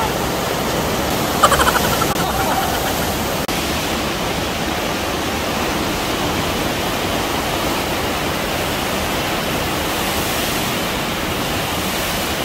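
Steady rush of water pumped up the slope of a surf-simulator sheet wave. About a second and a half in, a brief voice-like cry rises above it.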